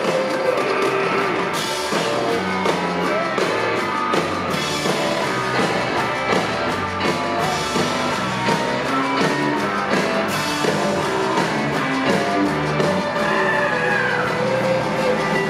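Live rock band playing, with electric guitar, drums and singing, heard from within the audience.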